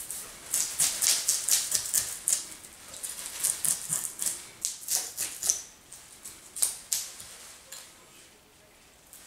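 A knife blade scraping the scales off a large striped bass in rapid, short strokes, several a second at first, then more spaced out, easing off near the end.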